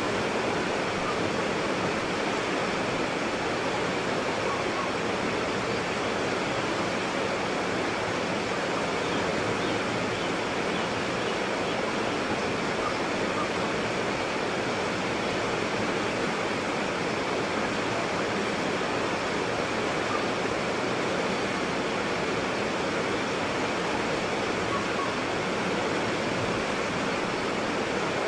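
White water rapids: fast water rushing over rocks in a constant, steady roar.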